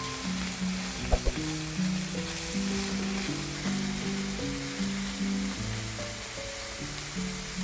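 Mushrooms and onions sizzling in a frying pan, with a couple of sharp taps about a second in. Soft background music plays underneath.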